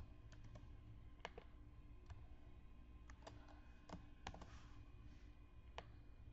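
Faint, scattered clicks of a computer mouse and keyboard, about ten in all, while text is selected, copied and pasted. A low, steady hum of room tone lies under the clicks.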